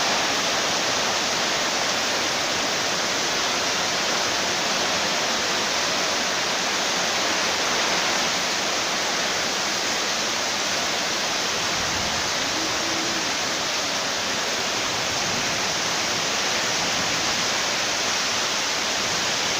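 Rain falling steadily on a tin roof, a dense even hiss that does not let up.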